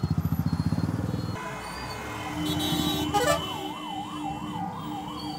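A motorcycle engine runs with an even pulsing beat for the first second or so. About three seconds in, an emergency-vehicle siren starts with a rising sweep and then wavers up and down about twice a second.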